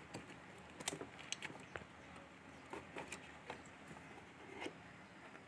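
Faint, irregular clicks and taps of a plastic wire connector and cables being handled and pushed onto a TV circuit board: the deflection-yoke lead being plugged in.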